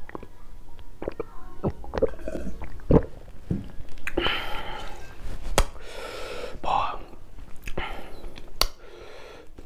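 Close-up eating sounds of a person eating rice and chicken by hand: chewing, wet mouth clicks and lip smacks, with a few breathy stretches in the middle.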